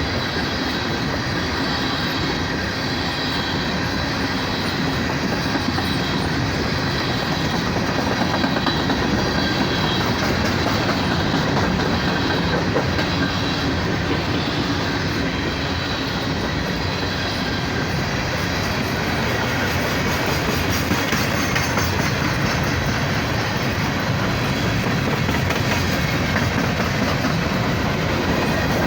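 Empty coal hopper cars of a long Union Pacific freight train rolling past, steel wheels running over the rails with a steady, unbroken rumble.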